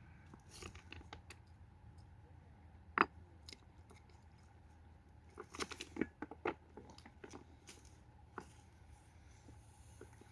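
Irregular small clicks and crunches, with one sharp click about three seconds in and a quick run of clicks around six seconds, over a low steady hum.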